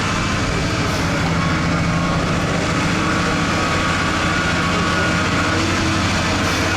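Tractor engine running at a steady speed, a constant low hum with a rough, noisy edge.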